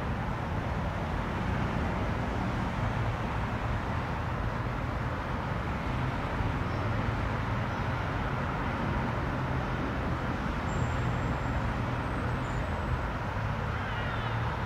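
Steady, distant jet roar of a departing Iberia Airbus A319 climbing away after takeoff, a broad even rumble with a low hum underneath. A few faint bird chirps come in near the end.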